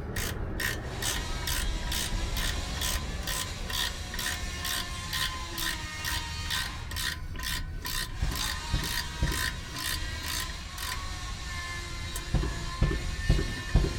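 Hand ratchet wrench clicking in steady strokes, about two to three clicks a second, as brake caliper bolts are run in. Near the end the clicks turn heavier and louder.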